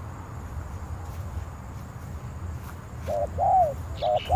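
Spotted dove cooing: a run of short coos that rise and fall in pitch, starting about three seconds in, over a low rumble.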